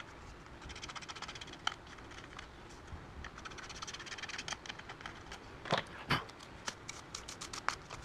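Small ticks and scrapes of a screwdriver tip poking and scraping inside a plastic hair dryer housing, picking out trapped pet hair, with two louder knocks about six seconds in.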